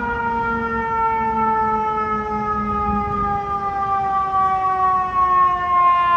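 FDNY fire engine's mechanical siren winding down: one long wail that falls slowly and steadily in pitch, over a low traffic and engine rumble.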